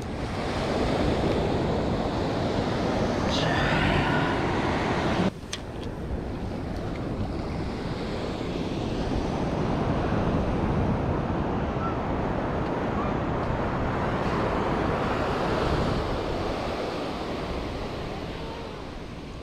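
Surf washing onto a sandy beach, with wind buffeting the microphone. The steady rush drops suddenly about five seconds in, then builds again.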